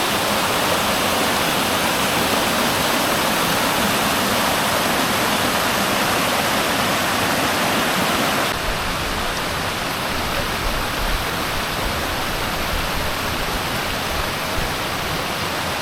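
Waterfall pouring, a loud steady rush of falling water heard up close. About halfway through the sound shifts suddenly to slightly quieter, with more deep rumble.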